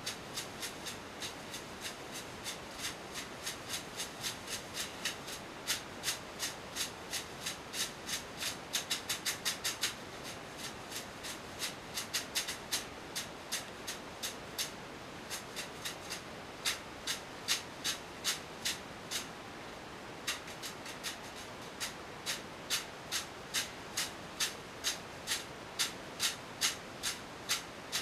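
Leafy bath broom (venik) slapping against bare skin in a steam room: a steady run of sharp leafy strikes about two a second. They come quicker for a moment about a third of the way in, with a few short pauses.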